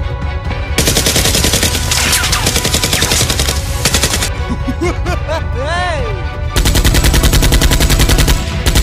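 Rapid automatic gunfire sound effects, dubbed over toy blaster play, in two long bursts with a short gap in the middle where a brief rising-and-falling whine sounds, over background music.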